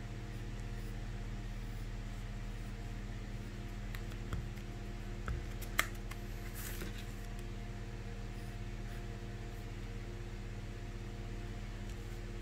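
Steady low electrical hum with several fixed tones, under faint pencil-and-paper sounds: a few light taps about four to six seconds in, then a brief scratchy rub of an eraser on paper.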